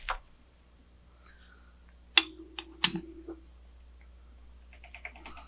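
Small metal-on-metal clicks and knocks as a hex key and a 5 mm block-off bolt are worked into a port on a Tial external wastegate. There are two sharp knocks about two and three seconds in, and a quick run of light clicks near the end.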